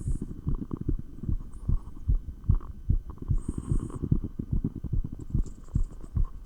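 A person's fast heartbeat heard through a stethoscope: a steady, even run of low thumps in lub-dub pairs, with two brief soft hisses.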